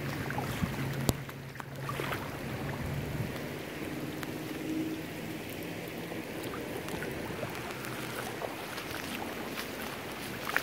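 Heavy thunderstorm rain falling on flash-flood water over pavement: a steady hiss of drops striking standing water, with scattered sharper drop impacts close by.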